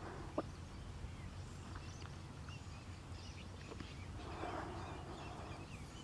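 Faint outdoor bird ambience: scattered short, high bird chirps over a low steady hum, with a single click just after the start and a soft, noisy rasp lasting about a second from about four seconds in.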